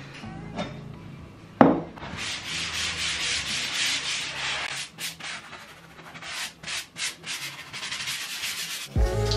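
Scrubbing across a surface in quick repeated rasping strokes, after a single knock; the strokes thin out into scattered clicks and taps. Background music comes in near the end.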